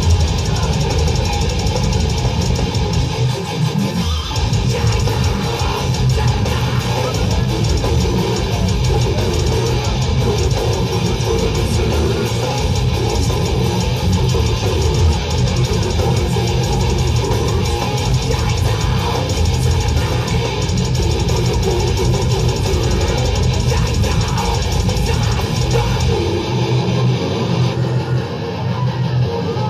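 Death metal band playing live: heavily distorted electric guitars, bass and a drum kit at a loud, unbroken level, with the vocalist growling into the microphone.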